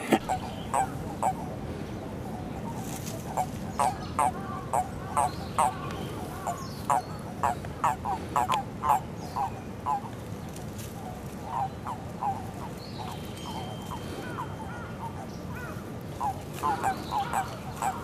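Japanese common toads calling: a run of short, single croaking calls, sometimes two or three a second, thinning out in the middle and picking up again near the end.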